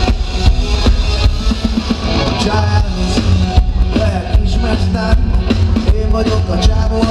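Live band playing loud through the stage PA: a drum kit beat under heavy bass and guitars, heard from within the audience.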